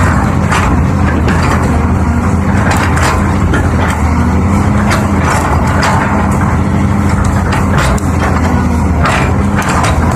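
Heavy diesel engine running steadily, with irregular short knocks and clatters over it.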